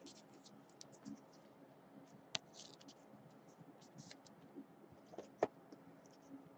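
Faint scratching and scattered clicks of trading cards and rigid plastic top loaders being handled, as cards are slid into the top loaders.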